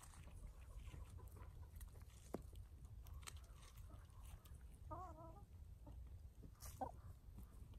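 Domestic hens foraging, one giving a short wavering cluck about five seconds in and another brief call near the end. Faint ticks of scratching and pecking in the soil and straw run underneath.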